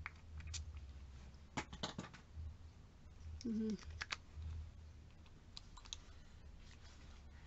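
Scattered light clicks and small rustles of cosmetic packaging being opened and handled, over a low steady hum, with a brief low tone near the middle.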